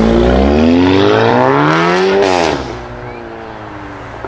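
Volkswagen Golf 7 R with an iPE aftermarket exhaust accelerating hard, its turbocharged four-cylinder climbing steadily in pitch for about two seconds. A little past two seconds in, the pitch drops sharply and the sound falls much quieter as the car goes past and away.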